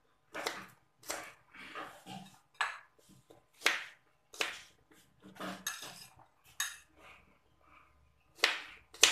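Kitchen knife cutting garlic cloves on a plastic cutting board: a string of irregular sharp knocks of the blade on the board, roughly one a second, with a brief scrape here and there.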